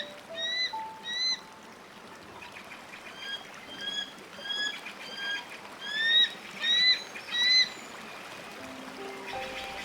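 A bird giving a short, high, arched call over and over: three calls, a pause, then about seven more at a steady pace.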